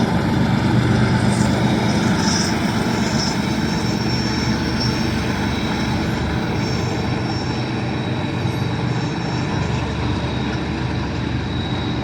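Diesel freight locomotives running with a loud, steady low engine drone.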